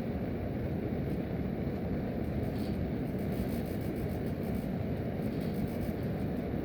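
Steady rush of air from a supply register, driven by an American Standard furnace's blower running in cooling mode.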